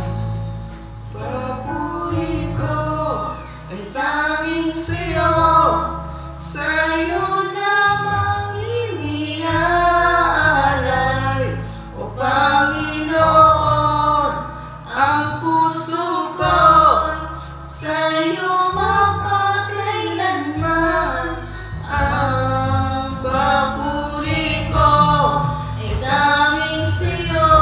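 A man and a woman singing a duet into a microphone over a backing track with a bass line.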